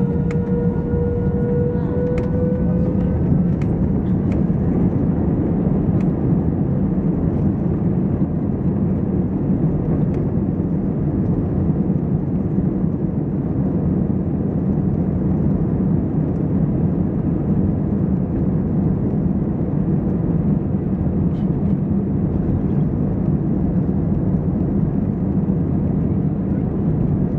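Steady low rumble of an Airbus A320's IAE V2527 engines heard from inside the passenger cabin, even in level throughout. A faint rising whine fades out in the first few seconds.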